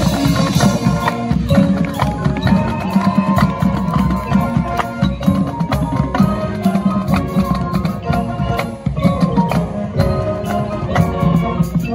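Marching band playing: brass, saxophones and clarinets with sousaphones in the bass, over a drumline and front-ensemble percussion striking a steady beat.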